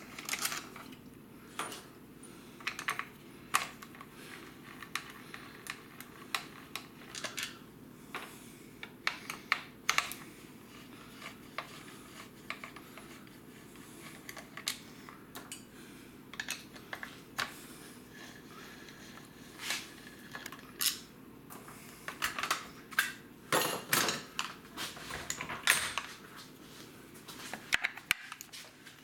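Irregular clicks and light clinks of hand tools and plastic parts during the teardown of a Stihl MS462 chainsaw: a long screwdriver working the housing screws and the plastic shroud and parts being handled. A denser run of louder clatter comes about three-quarters of the way through.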